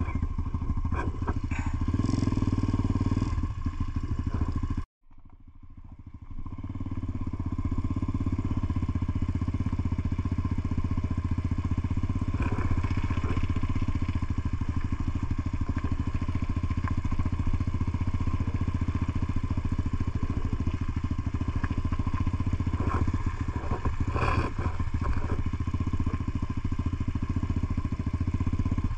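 Motorcycle engine running steadily as the bike is ridden, heard from on board. About five seconds in the sound cuts out for a moment and fades back up over the next couple of seconds, and a few short clatters come through later on.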